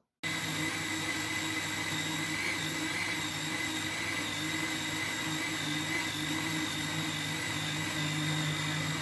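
Electric countertop blender switching on and running steadily at one speed. It gives a constant motor hum and whine as it grinds wafer biscuits with cold milk into a thick purée.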